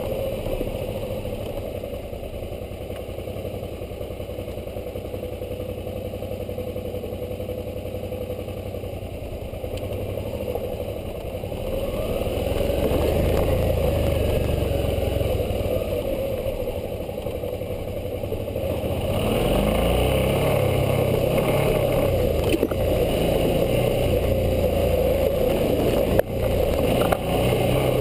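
Suzuki V-Strom 650's V-twin engine running under way. The engine grows louder about twelve seconds in, eases off, and picks up again near twenty seconds. There is a single sharp knock near the end.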